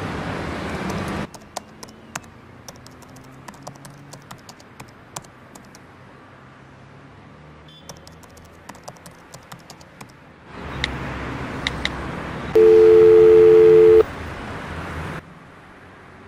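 Laptop keyboard typing, irregular key clicks, followed by a telephone dial tone: a steady two-note hum that sounds loudly for about a second and a half and cuts off. A steady rushing noise like surf or wind plays under the first second and again from about ten seconds in.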